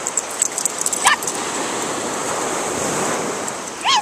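Steady surf on a beach, with a dog giving two short high yips, one about a second in and one near the end.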